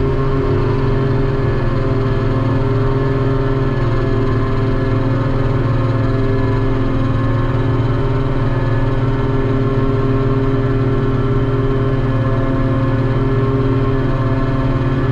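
Old ship's deck crane running, heard from inside its cab: a loud, steady mechanical drone made of several held tones that barely change.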